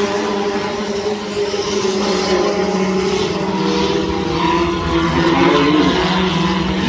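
A pack of front-wheel-drive race cars running hard on a short oval, several engines sounding at once, their pitches wavering as the cars pass.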